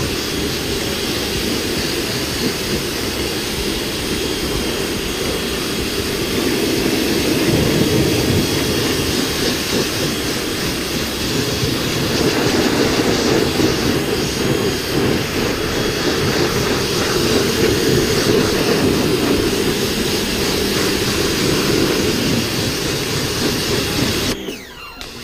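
Pressure washer running and spraying a jet of water over a car's engine bay: a steady, loud hiss and rush of motor, pump and spray. About a second before the end the spray cuts out briefly, then starts again.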